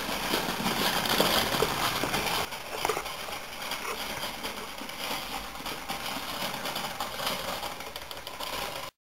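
Wilesco D430 toy live-steam locomobile running under its own steam, a steady hiss with a busy mechanical rattle. It drops in level about two and a half seconds in and cuts off abruptly near the end.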